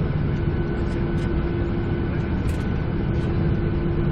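Steady cabin noise inside a Boeing 737-800 on the ground: an even hum with a few constant tones from the aircraft's engines and air systems.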